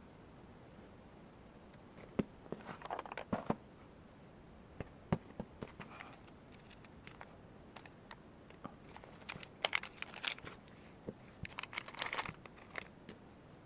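Small parts being handled by hand: scattered clicks and light taps, with three short bursts of crinkling like wrapping or a bag being handled.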